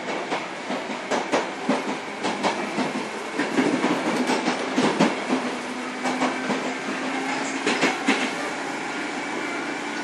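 Running sound inside a Sotetsu 7000 series electric train car, which has right-angle cardan drive: wheels clicking irregularly over rail joints over a steady rolling rumble, with a faint steady hum partway through.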